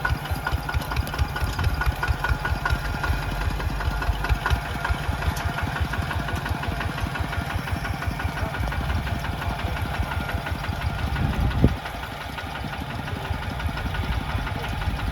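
Mini tractor's engine running steadily with a rapid, even knocking beat. About three quarters of the way through it surges briefly, then settles a little quieter.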